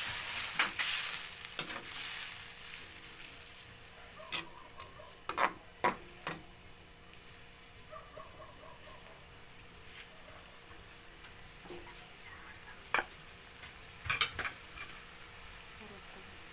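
A metal spatula stirs and scrapes a steel wok of pork and shrimp just deglazed with a cup of water. The sizzle fades over the first few seconds to a faint simmer. The spatula clinks sharply against the wok a few times, in two clusters around the middle and near the end.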